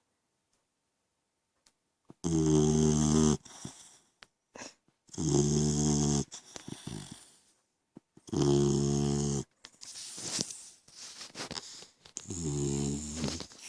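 French mastiff/pitbull mix puppy snoring: four loud snores, each about a second long, coming roughly every three seconds after a quiet first two seconds, with softer snuffling breaths between them.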